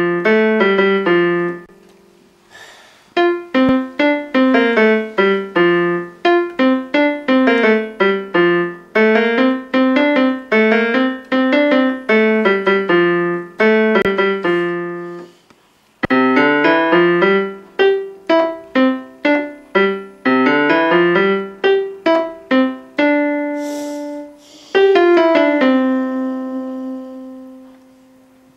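Electronic keyboard played with a piano sound, both hands: a simple melody of single notes over a lower line, in phrases broken by two short pauses, ending on a held chord that fades away.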